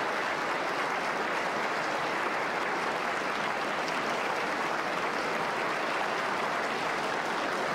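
A large audience applauding steadily, a continuous dense clapping with no breaks.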